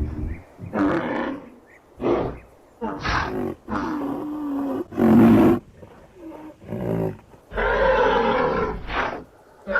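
Rhinoceros calls: a series of about eight separate calls of varying length with short gaps between them. The loudest comes about five seconds in and the longest, over a second, near the end.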